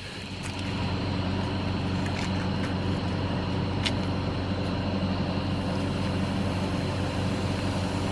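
A steady low engine or motor hum, with a few faint clicks over it.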